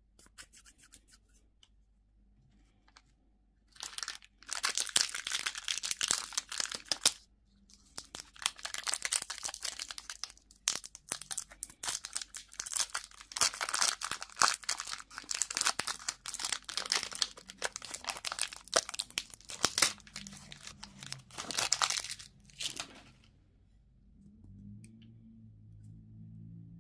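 Candy wrapper being torn open and crinkled by hand: a few faint clicks, then long stretches of dense crackling with brief pauses, stopping a few seconds before the end.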